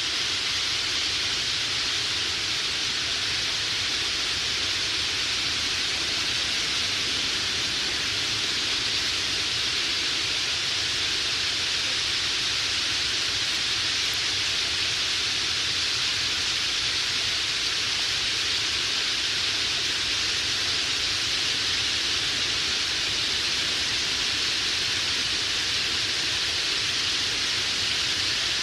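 A roosting flock of red-billed queleas in its millions, countless birds chattering at once and merging into a steady, dense hiss-like din.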